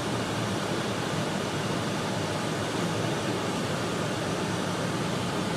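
Steady, even noise inside the cabin of a moving four-wheel-drive vehicle: road, engine and wind noise as it drives slowly through blowing snow.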